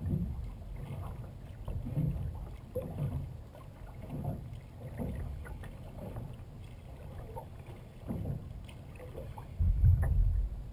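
Sea kayak paddling on calm water: the paddle blades dip and pull through the water roughly once a second, with water washing along the hull. Near the end there is a louder low rumble lasting about a second.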